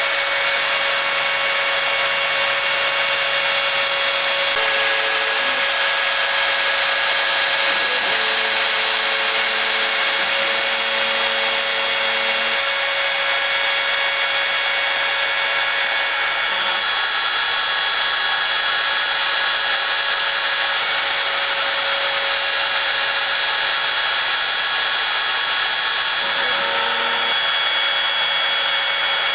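Spindle motor of a home-built CNC router running steadily with a high-pitched whine while its small end mill carves hard foam. Short low hums come and go about a fifth of the way in, for several seconds near the middle of the first half, and again near the end, as the axis stepper motors move the cutter.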